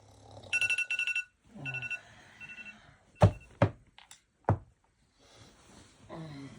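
An electronic alarm clock beeping in quick high-pitched pulses, a loud run and then two fainter runs, followed by three loud thumps.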